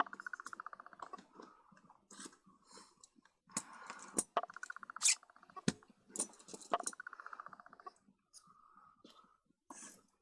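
Small metal lens parts and a hand tool clicking and knocking, with several runs of rapid fine ticking about a second long, like a threaded lens ring being turned.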